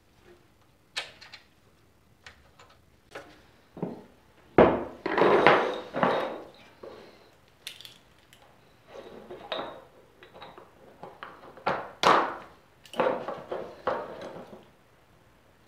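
Irregular clicks, clanks and scrapes of small metal parts being handled: the drum brake shoes and their return spring worked with pliers on a wooden workbench. The loudest clatters come about five seconds in and again about twelve seconds in.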